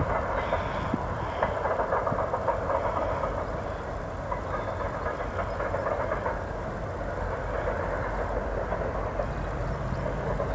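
A Union Pacific mixed freight train passing at speed: several diesel-electric locomotives run by with their engines working and steel wheels rolling on the rails, then the freight cars follow. It is a steady, dense rumble, a little louder in the first few seconds.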